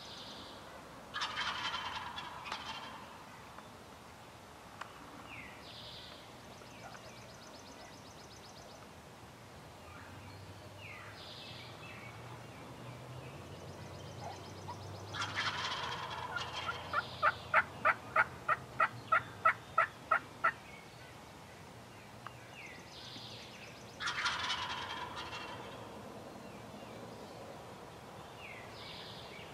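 Wild turkey gobblers gobbling three times: about a second in, about fifteen seconds in and about twenty-four seconds in, each a rattling burst that fades over a second or two. Right after the middle gobble comes the loudest sound, a steady run of about a dozen turkey yelps, roughly three a second.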